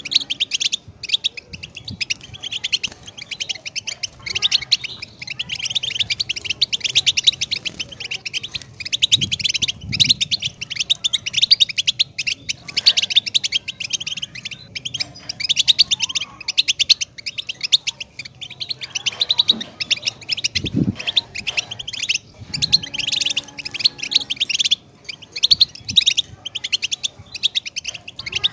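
European goldfinch singing: a long, fast twittering song of rapid high notes, broken by short pauses every few seconds.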